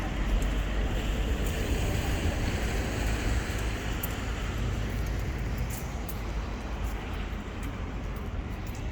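Road traffic on a wet city street: a steady rumble of engines and tyre hiss, loudest near the start and easing off slightly, with a few faint ticks.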